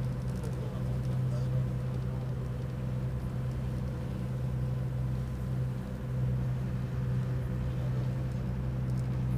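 Sightseeing boat's engine droning steadily while under way, with the low hum of the hull and water beneath it.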